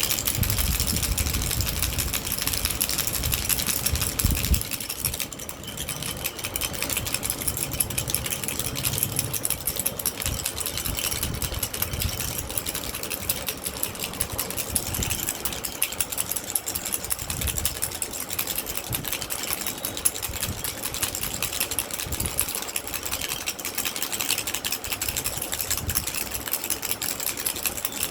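Baby rattle shaken fast and without a break, a dense continuous clatter of small clicks, with a few low bumps in the first few seconds.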